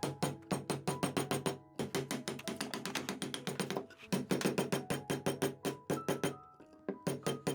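Background music: fast, clicky wood-block-like percussion over sustained pitched notes.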